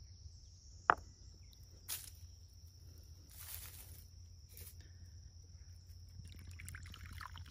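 Faint outdoor scene with a steady high insect drone throughout, a sharp click about a second in, and brief rustling of straw mulch as a cup slug trap is set down. From about six seconds in, beer is poured from a can into the cup.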